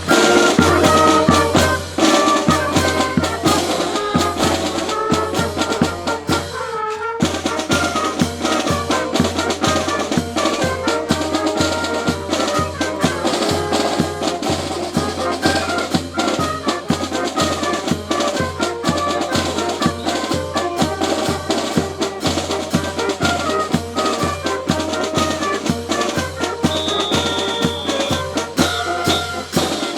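Marching brass band playing a march, with trumpets over a steady bass-drum and snare beat; the music breaks off briefly about seven seconds in and then carries on.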